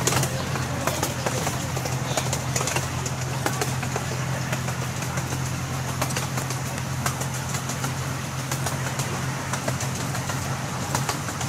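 Amusement-park ride-on train running along its track: a steady low locomotive engine drone with irregular clicks and rattles from the wheels and cars.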